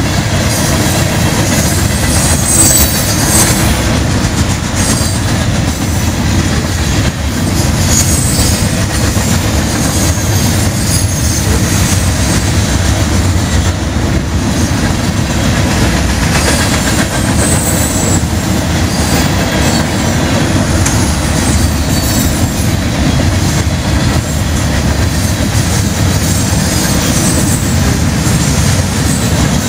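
A freight train of open-top gondola cars rolling past close by: a loud, steady rumble of steel wheels on rail, with brief high wheel squeals now and then.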